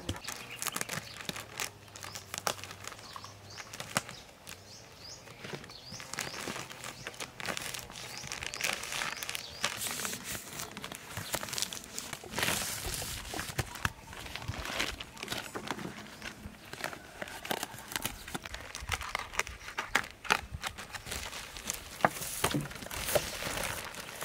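Thin clear plastic wrapping crinkling, rustling and tearing as it is peeled and pulled off a large bundle, in a dense, irregular run of crackles.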